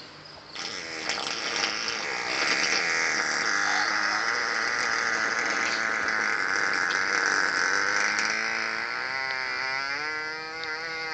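A long, continuous buzzing fart sound with a pitch that wavers up and down, wobbling faster and dipping low near the end.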